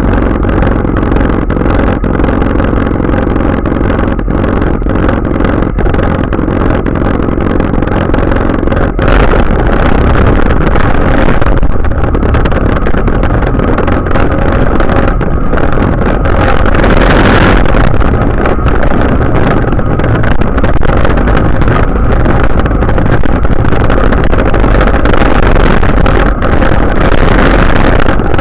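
Tractor engine running loud and steady as it drives, pushing snow with a side-mounted wing plow. The noise gets a little louder about a third of the way in and again a bit past halfway.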